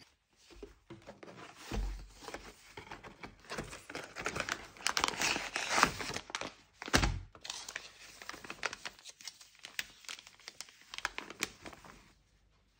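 Packaging being handled: a cardboard pancake-mix box opened and its inner packet torn and crinkled, loudest in the middle. A low thud comes about seven seconds in, then more crinkling as the dry mix is poured into a stainless steel bowl.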